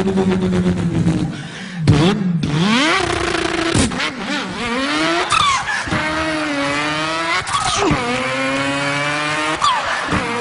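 A man imitating a car engine with his voice. It holds a steady note at first, then revs up in rising runs that drop back and climb again, like an engine changing up through the gears.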